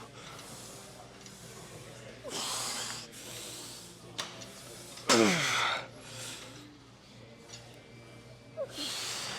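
A man breathing out hard with each lat pulldown rep, about one strained exhale every three seconds. The loudest, about five seconds in, is a grunt that falls in pitch.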